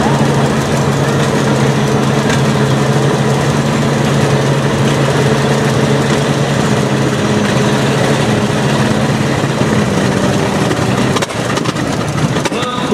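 Small vintage farm tractor's engine running hard at a steady pitch as it drags a tractor-pull sled, then easing off about eleven seconds in as the pull ends.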